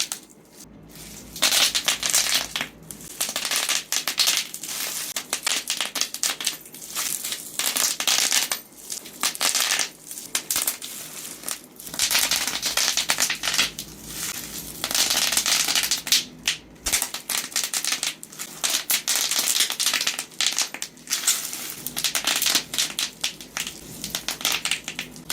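Bubble wrap being squeezed by hand, its bubbles popping in rapid crackling bursts of many sharp pops, with short pauses between handfuls.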